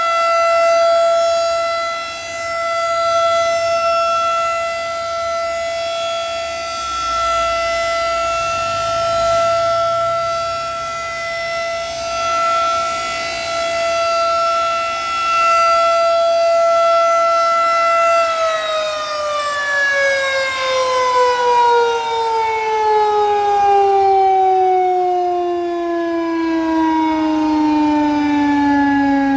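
Federal Signal 2001 DC rotating outdoor warning siren sounding a steady tone, swelling and fading as the horn turns. A little over halfway through it begins winding down, its pitch falling steadily.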